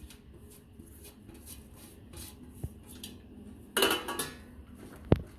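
Stainless steel plates clinking and scraping as chopped herbs and grated cauliflower are mixed by hand, with a ringing rattle of steel about four seconds in and a sharp knock just before the end.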